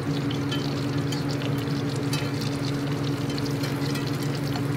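A steady low machine hum under an even hiss with scattered faint crackles, from a small wood fire burning in a brick rocket stove and sausage patties sizzling in a cast-iron skillet.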